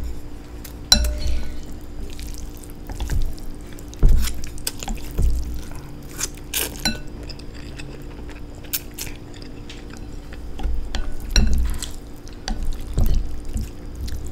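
Eating instant noodles close to the microphone: wet mouth sounds with scattered sharp clicks of a utensil against the bowl, and a few low knocks.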